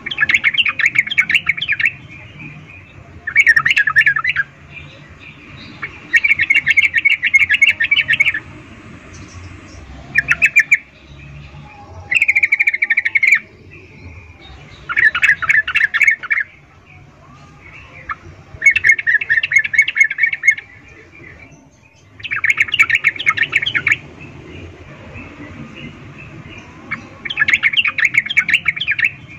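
Yellow-vented bulbul (trucukan) giving loud bursts of fast chattering notes, about nine bursts of one to two seconds each, a few seconds apart: a female's breeding-condition (birahi) call, used to draw males.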